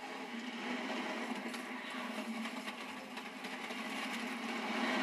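Steady rushing rumble of a train running along rails, a film soundtrack effect heard through a television's speaker.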